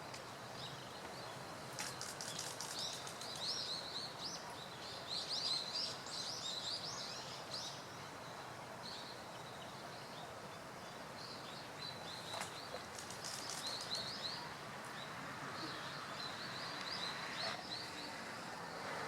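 Bird calls: bursts of quick, high chirps repeating in runs over a steady outdoor background hiss.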